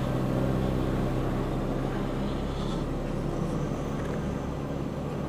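Honda VFR800 motorcycle's V4 engine running steadily while riding, with no revving.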